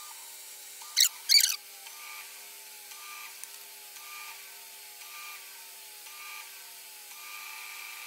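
Panasonic NA-158VT top-loading washing machine starting a spin cycle with the tub empty: a steady motor hum, with a whine that comes about once a second and falls in pitch each time, then holds steady near the end. Two brief, sharp chirps about a second in.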